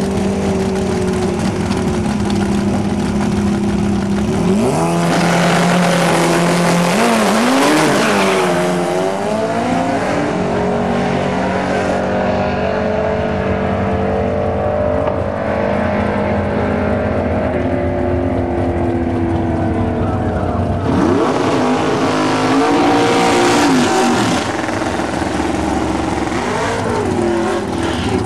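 Car engines running steadily, with engines revving hard twice, the pitch sweeping up and down in quick rises and falls.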